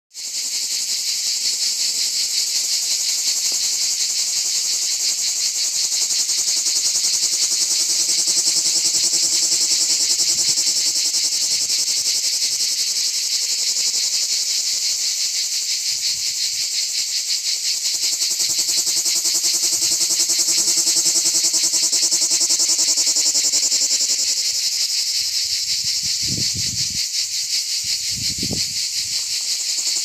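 Plebeian cicadas (Lyristes plebejus) singing: a continuous, high-pitched, rapidly pulsing drone that hardly changes in level.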